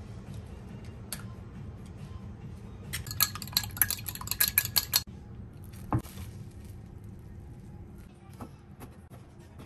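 Fork beating eggs in a ceramic bowl: about two seconds of rapid clinking of metal on the bowl, over a low steady hum. A single knock follows a second later.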